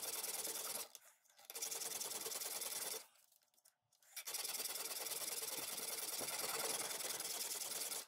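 Flat hand file scraping across a steel knife blade held in a file jig, cutting the blade's false edge. The steady rasping comes in three stretches separated by brief breaks.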